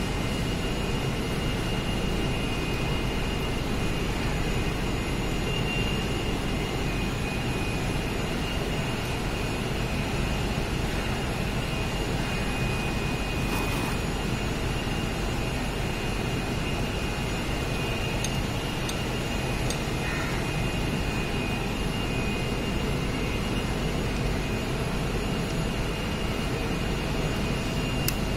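Steady machine noise with a high whine running throughout, with a few faint clicks of metal parts being handled.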